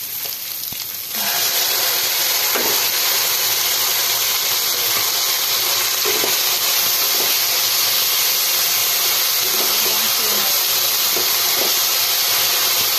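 Tuna and chopped garlic frying in hot oil in a wok: a loud, steady sizzle that jumps up about a second in, when the tuna's liquid is in the pan, with a few scrapes of a wooden spatula stirring.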